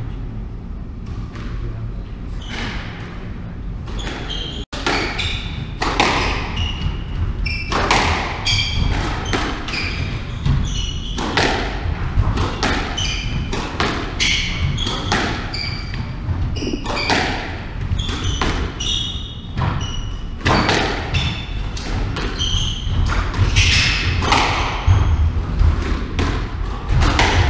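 Squash rally: the ball cracks off rackets and thuds off the walls about once a second, with shoes squeaking on the wooden court floor. The rally starts about five seconds in, after a brief dropout.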